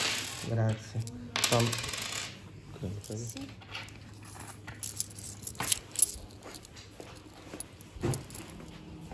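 Euro coins clinking as they are tipped out of a wallet and picked over by hand on a desk and in a palm: a scatter of separate sharp clinks, the loudest about six seconds in.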